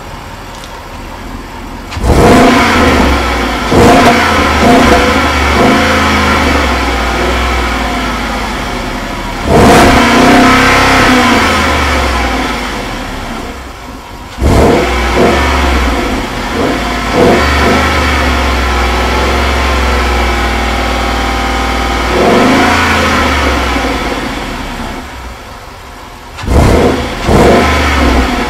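2011 Jaguar XF's naturally aspirated 5.0-litre V8, heard at the tailpipe, idling and being revved again and again. There are sharp throttle blips, some in quick pairs and some held for several seconds, each sinking slowly back to idle.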